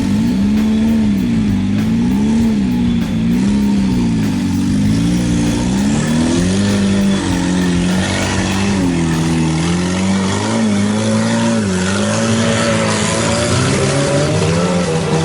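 Off-road 4x4's engine revving up and down over and over, its pitch rising and falling about once a second.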